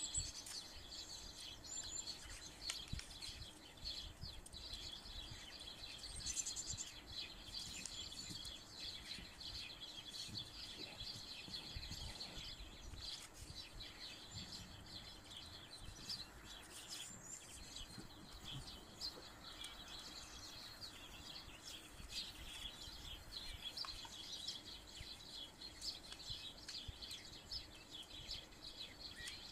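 Faint birds chirping continuously, with soft rustles and taps of paper being folded and creased by hand on a table.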